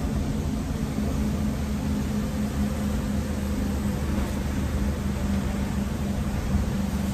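Heavy truck running downhill, heard from inside the cab: a steady engine drone with a constant low hum, mixed with tyre hiss on the wet road.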